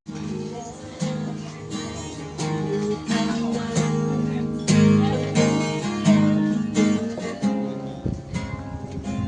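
Music from a plucked string instrument, with notes and chords picked out in steady succession. It starts suddenly and fades about eight seconds in, where a few clicks take over.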